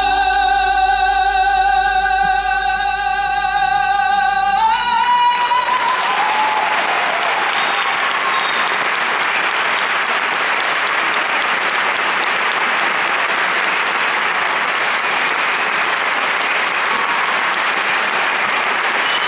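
A female singer holds a long note with vibrato over the band, stepping up slightly in pitch just before she and the band stop about five seconds in; the audience then applauds steadily.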